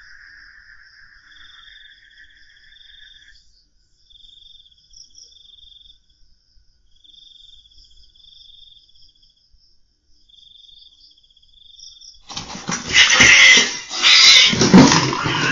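Faint pulsed chirping of a night chorus, then about twelve seconds in a sudden loud cat fight breaks out and lasts about three seconds before stopping near the end.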